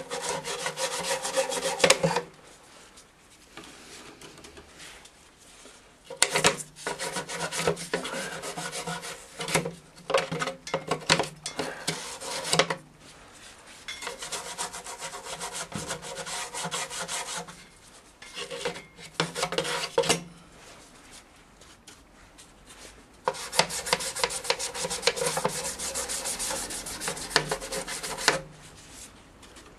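Scrubbing on the BMW F650 GS engine casings as degreaser is worked in: spells of rapid back-and-forth strokes lasting a few seconds each, with short pauses between.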